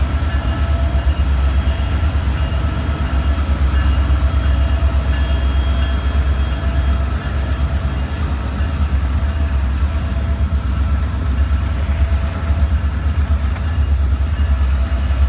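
Freight train of open-top gondola cars rolling past: a loud, steady rumble of steel wheels on the rails, with a faint steady whine above it.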